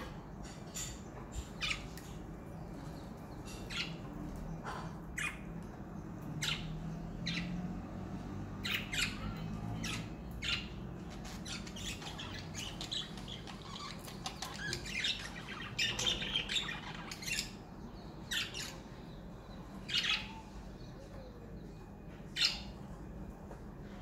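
Pet budgerigars chirping and squawking in short, scattered calls, becoming a busy chatter about two-thirds of the way through.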